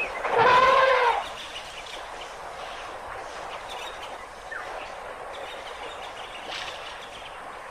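One loud animal call, about a second long, near the start, followed by a steady outdoor background with a faint bird chirp.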